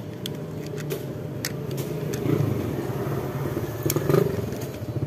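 A motor vehicle engine running steadily, with a couple of louder swells, and a few short sharp clicks of hand tools working a wire.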